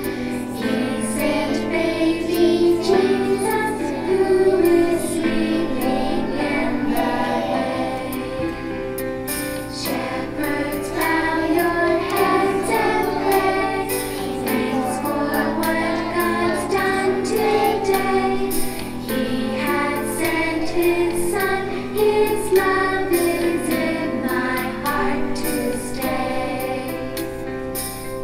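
A group of young children singing a Christmas hymn together, as a choir.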